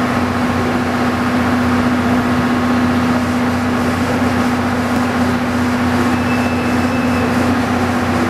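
Diesel engine idling at a station: a steady low drone with a constant hum that does not change.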